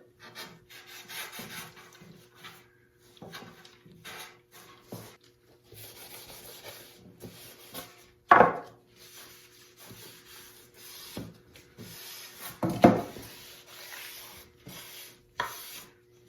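Wood being hand-sanded with sandpaper: irregular scraping strokes, with two louder knocks about eight and thirteen seconds in.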